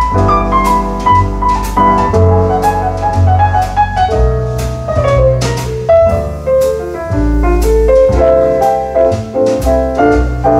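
Jazz piano solo: quick runs of struck notes over a walking bass line, with cymbal strokes from a drum kit.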